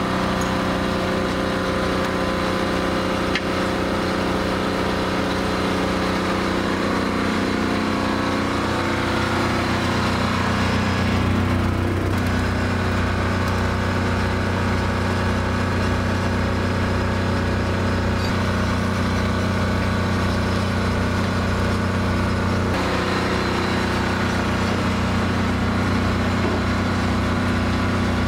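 An engine running steadily at idle, with a slow, even pulse underneath; its tone shifts about a third of the way in and again later on.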